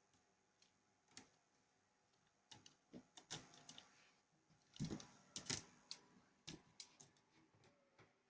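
Kittens' claws catching and scratching on a window screen mesh: scattered, irregular light clicks and scrapes, busiest around the middle.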